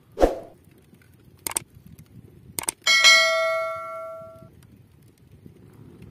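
YouTube subscribe-button animation sound effect: a soft thump, two sharp mouse clicks, then a bright bell ding that rings out for about a second and a half.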